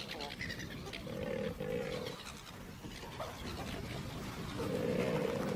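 A crowded flock of Australian pelicans giving low, drawn-out animal calls, heard three times: about a second in, around two seconds in and near the end, over a noisy background.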